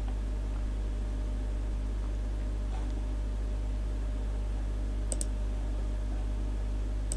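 Steady low electrical mains hum with a faint computer-mouse click about five seconds in.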